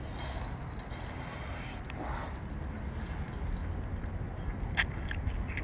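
A sharp click near the end as a chili-sauce-coated octopus is bitten into, over a low steady rumble.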